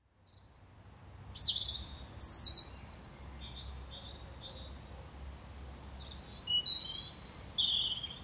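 European robin singing: phrases of high, thin whistles and trills, one sliding steeply down. The loudest phrases come about one to two seconds in and again near the end, with softer short notes between them.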